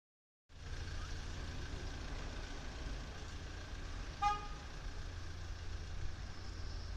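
A single short vehicle horn toot about four seconds in, over a steady low rumble of outdoor traffic and engine noise.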